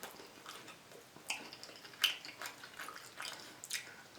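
Wet chewing and lip smacking on barbecue ribs: a scatter of soft, sticky mouth clicks.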